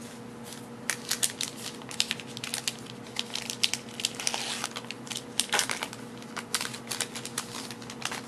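Foil trading-card pack wrapper being torn open and crinkled by hand: a run of sharp crackles starting about a second in, busiest around the middle.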